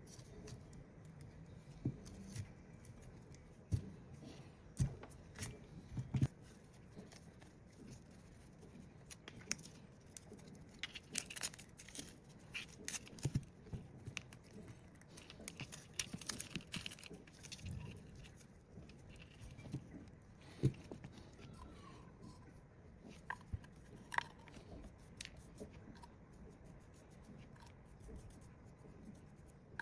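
Quiet hand-work noises on a microwave-oven transformer's primary winding: irregular small clicks and taps with soft rustling, a handful of sharper knocks scattered throughout.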